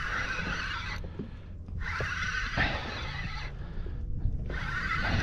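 Spinning fishing reel whirring in three bursts of about a second each while a big hooked snook is played toward the boat, over a low wind rumble.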